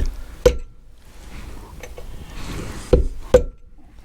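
Sharp metal-on-metal taps on a motorcycle engine shaft to knock out a Woodruff key: two pairs of knocks, one at the start and another about three seconds in, the second of each pair leaving a short metallic ring, with light scraping between.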